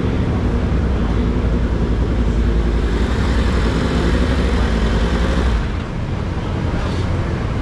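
Yamaha YZF-R1 superbike's crossplane inline-four engine running as the race bike rolls into the pit box, its deep engine sound dropping away sharply about six seconds in.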